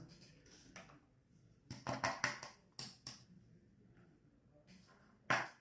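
Short clicks and taps of small lids and seed pots being handled while hydrogen peroxide is drained off soaking seeds: a cluster of knocks about two seconds in and a louder one near the end.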